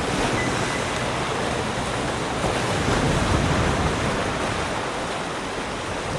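Ocean surf washing onto a beach: a steady rushing hiss of breaking waves that swells a little in the middle and eases off near the end.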